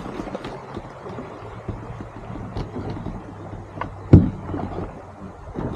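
Canoe on the water: irregular splashing and rustling around the boat, with one sharp, loud knock about four seconds in.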